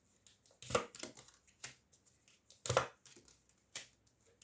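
Tarot cards being drawn and laid down on a table: a few sharp slaps and taps about a second apart, with soft card handling between them.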